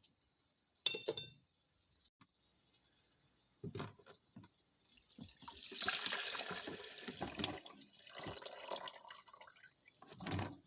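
A sharp, ringing clink about a second in and a few knocks, then water running into a container for about three seconds while it fills.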